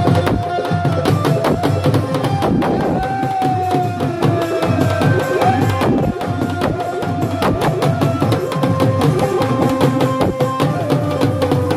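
Live devotional folk music: a dholak (two-headed barrel drum) beating a fast, steady rhythm under a sustained melody line that slides in pitch.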